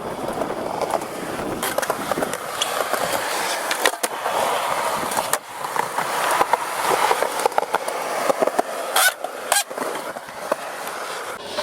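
Skateboard wheels rolling over concrete, with sharp clacks of the board striking the ground, two strong ones close together about three quarters of the way in.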